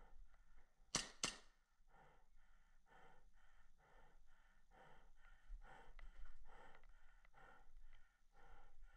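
Two sharp airsoft gun shots about a second in, a third of a second apart. Then faint, fast heavy breathing, about two breaths a second.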